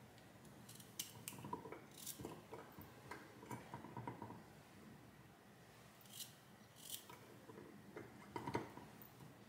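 Faint scattered snips and light clicks of hand work in the kitchen, a few sharper ones standing out over soft rustling.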